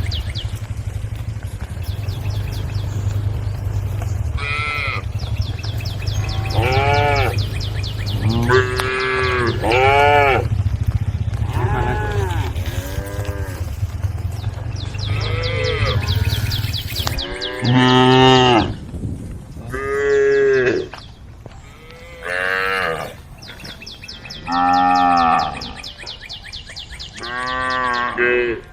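Cows mooing: about a dozen long calls from several animals, some overlapping, the loudest in the second half.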